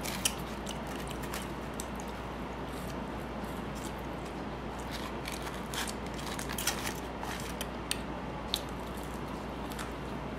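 A person eating, with chewing and many small scattered clicks and crackles of the food and mouth, over a steady low hum.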